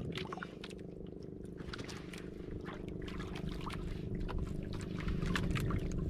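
A small boat engine running steadily, growing a little louder toward the end, with scattered light clicks and taps over it.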